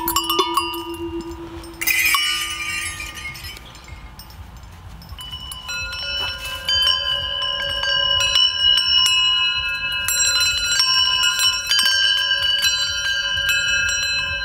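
Hanging metal bells and chimes being struck by hand. A low bell tone rings and fades, a short metallic jangle comes about two seconds in, and from about five seconds on several high chime tones ring on together under repeated light strikes.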